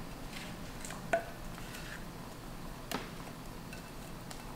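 Silicone spatula scraping mashed banana out of a glass bowl into a stainless steel mixing bowl: faint scraping with a few soft knocks, the clearest about a second in and about three seconds in.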